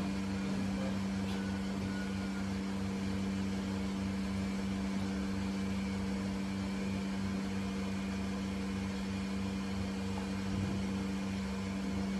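Steady hum of dairy-barn machinery: one even droning tone with overtones and a low, regular pulsing underneath.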